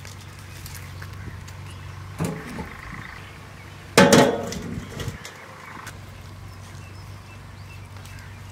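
A loud metallic clang about four seconds in, ringing for about a second, from an empty metal oil tin put down on the ground, with a smaller knock a couple of seconds before it. A low steady hum runs underneath.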